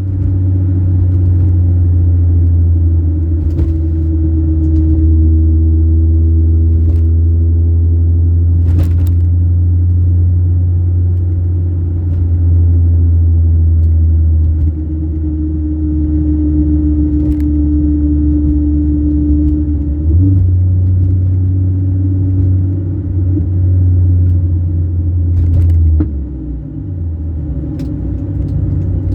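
Sprintex-supercharged four-cylinder engine of a 2004 Mini Cooper S running under way with a loud, steady low drone, its pitch shifting slightly as the revs change. The note dips briefly about 20 seconds in and falls away again near the end, with a few faint clicks over the top.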